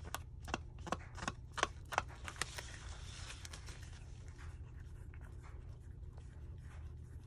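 Wooden craft stick scraping and knocking against the sides of a plastic mixing cup while stirring resin, with a quick run of sharp scrapes in the first couple of seconds, then softer stirring. A low steady hum sits underneath.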